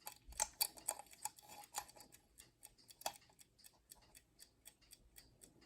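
Light, irregular clicks and ticks from a small Westclox mechanical alarm clock being worked on by hand while its hands are lined up.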